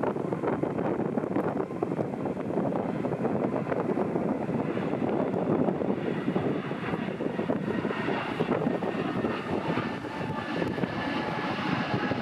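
Airliner engine noise: a steady rush, with a faint high whine coming in about two-thirds of the way through.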